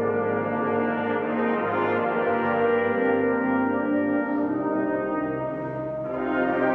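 Wind band playing slow, sustained chords, with clarinets and brass together. The sound eases off briefly near the end, then swells again.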